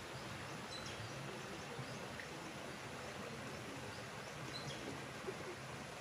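Steady rush of a rainforest creek running over rocks, with a few faint, short, high bird chirps scattered through.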